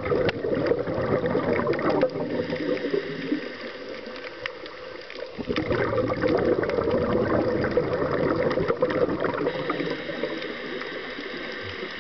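A scuba diver's exhaled bubbles rushing and gurgling from the regulator, recorded underwater. They come in two long loud stretches, one at the start and one from about five and a half seconds in, with quieter spells between.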